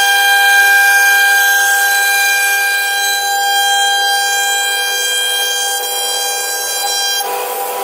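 CNC router spindle running at high speed, a steady high-pitched whine with many overtones; about seven seconds in the upper part of the whine drops away, leaving a lower steady tone.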